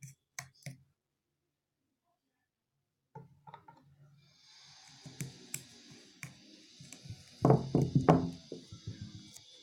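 Metal spoon clicking and scraping against a small bowl while stirring honey into powdered garlic ash. There are a few quick clicks at first, then a break, then scattered taps over a faint hiss, and a louder run of scraping strokes near the end.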